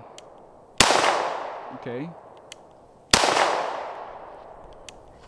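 Two shots from a Smith & Wesson SD9 2.0 9mm pistol, a little over two seconds apart, each sharp crack followed by an echo that dies away over more than a second.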